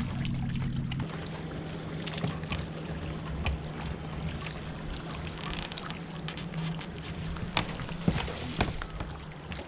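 Steady low hum of a bass boat's bow-mount electric trolling motor, with water lapping. Near the end there are a few sharp knocks as a hooked bass is fought on a bent casting rod.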